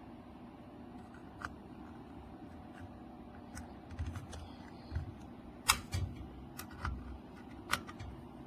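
Scattered sharp clicks and light knocks of hard objects being handled, irregular and growing busier in the second half, the loudest about two-thirds of the way through.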